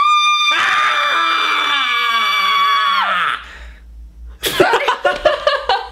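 A woman and a man scream together for about three seconds, hers high and held steady, his lower and sliding down in pitch; they cut off, and after a short pause laughter breaks out.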